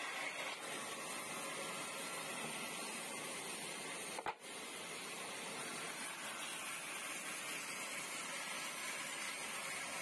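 Steady whirring hiss of an old sawmill bandsaw running without cutting, with one short sharp click about four seconds in.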